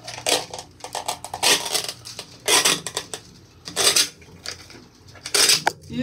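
Handling noise of plastic and rubber parts worked around a metal cable lug at the top of a cold shrink high-voltage cable termination: a run of clattering, scraping bursts, about five louder ones with smaller clicks in between.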